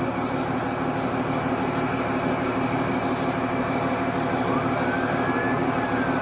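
Steady low drone of a vehicle engine idling at the roadside, with a faint tone that glides up and back down about four and a half seconds in.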